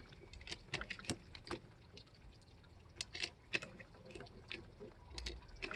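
9mm cartridges being pressed one by one into a 34-round Glock-pattern magazine with a Maglula speed loader: a run of light, irregular clicks, with a short pause midway.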